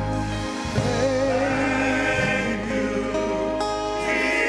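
Gospel worship song: voices singing held, wavering notes over sustained organ-like chords and bass.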